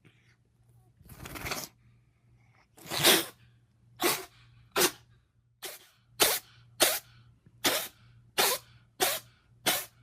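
An animal sneezing over and over: a longer build-up sneeze, then a loud one, then about nine short sharp sneezes in quick succession, one every second or less.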